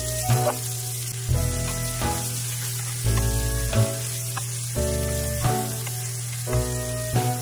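Chopped onions sizzling in hot oil in a non-stick frying pan as a spatula stirs them, with background music playing a repeating phrase over it.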